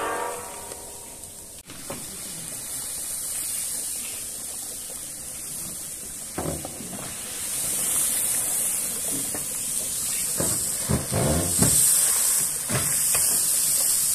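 A large iron cauldron of boiling meat-and-tomato stock over a wood fire, with steady steam hissing that grows louder about halfway through. A long wooden paddle knocks and scrapes as the stock is stirred, and water is poured in with a splash near the end.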